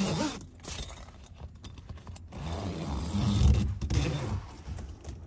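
Handling noise of a camera being moved about inside a tent: irregular rustling, scraping and knocks against the tent fabric, loudest about three and a half seconds in.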